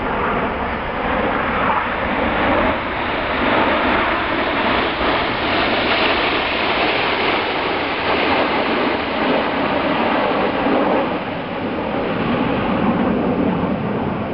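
Red Arrows' BAE Hawk T1 jets flying past in formation: a loud, steady jet roar that swells through the middle.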